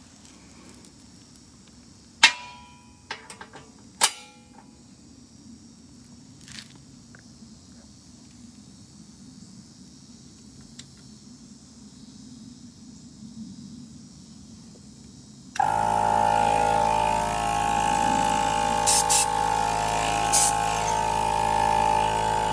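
Onboard air compressor under a van switching on suddenly about two-thirds of the way in and running with a steady, loud buzzing hum, a few short ticks over it. Before it starts there are only two sharp, ringing clinks a couple of seconds apart.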